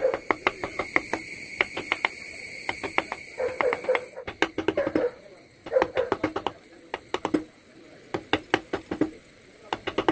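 Hand-pushed wood chisel cutting into the wood of a relief carving: a run of sharp, irregular clicks and cracks as the edge bites and chips break away. A steady high hum sounds under the first four seconds and then stops.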